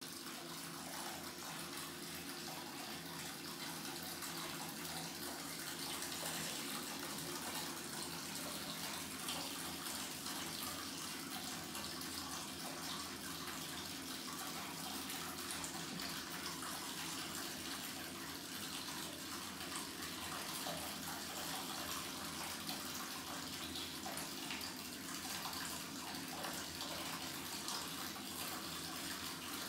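Water running steadily from a wall-mounted tap into a copper bathtub, a thin stream splashing into shallow water.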